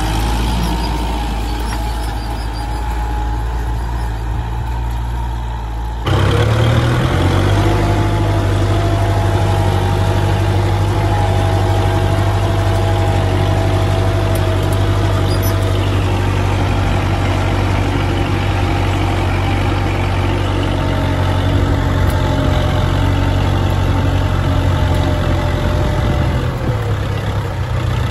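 Kubota MU4501 tractor's four-cylinder diesel engine running steadily as the tractor pulls an implement across tilled ground. About six seconds in it becomes suddenly louder and closer, with a whine over the engine note that rises a little and then holds steady.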